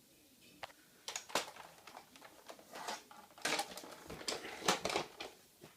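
A Roomba Discovery robot vacuum being handled: irregular light clicks and knocks of hard plastic.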